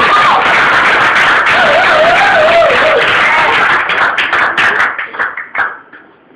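Audience applauding and cheering at the end of a live song, with a voice wavering over the noise; the clapping thins to scattered single claps about four seconds in and dies away near the end.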